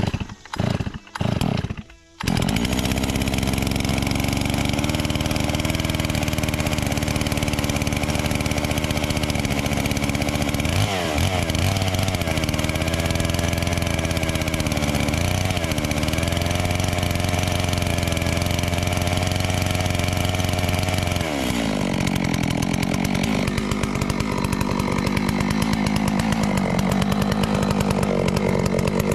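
Large two-stroke chainsaw on an Alaskan chainsaw mill: three short bursts of engine noise, then it runs continuously at full throttle ripping lengthwise through a log. About eleven seconds in its pitch wobbles, and about twenty-one seconds in the note drops and turns uneven as the load in the cut changes.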